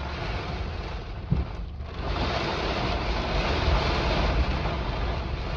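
Heavy rain and gusting storm wind on a car, heard from inside the cabin as a steady rush of noise with a low rumble. It eases briefly about a second and a half in, then picks up again.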